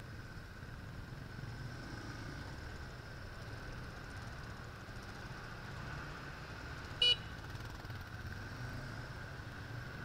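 Yamaha XT225's single-cylinder engine idling quietly as a steady low rumble. A short, sharp high-pitched beep sounds once about seven seconds in.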